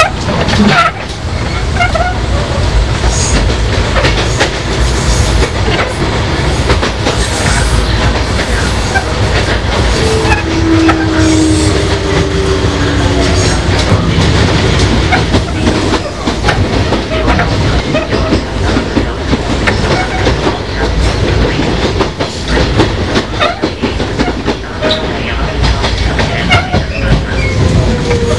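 On-board running sound of a Sotetsu 5000-series leading motor car at speed: a steady rumble from the right-angle cardan drive bogies and the Toyo Denki VVVF inverter, with clickety-clack over the rail joints. A faint falling tone comes in about ten seconds in and again near the end.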